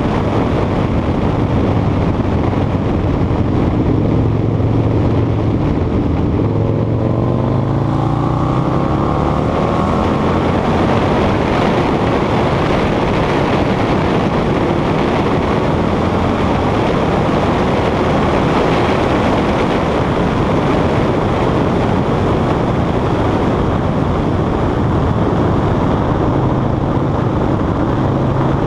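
Harley-Davidson Sportster V-twin, bored out to about 90 cubic inches with Red Shift 643 cams, under way at speed. The engine note rises in pitch between about six and ten seconds in as it accelerates, then carries on under heavy wind rush on a helmet-mounted microphone, and settles to a steadier, lower note near the end.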